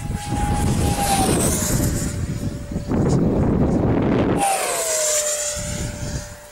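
F-35 fighter's F135 turbofan passing overhead: jet noise with a high whine that falls in pitch as it goes by, about a second in and again, after an abrupt change, about four and a half seconds in, fading toward the end. Wind rumbles on the microphone in the first part.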